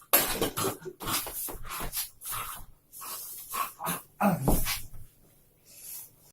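A dog making a series of short, uneven vocal sounds, one sliding down in pitch about four and a half seconds in.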